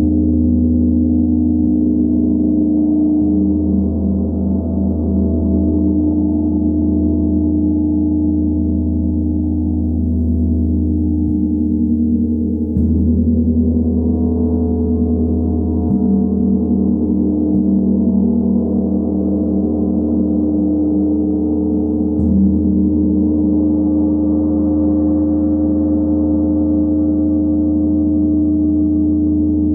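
A 90 cm hammered Tibetan gong played with a soft mallet: gentle strokes every few seconds keep it sounding as one continuous low hum of many overlapping tones, without sharp attacks.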